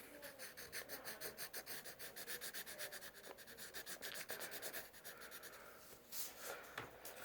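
Quick back-and-forth scribbling of a drawing utensil on paper, shading in a drawing: a run of rapid, even strokes several a second, pausing about five seconds in, then a few separate strokes near the end.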